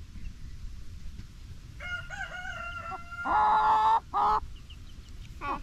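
A rooster crowing: one crow in several parts starting about two seconds in, loudest in its later stretch and ending with a short final note. A brief call follows near the end.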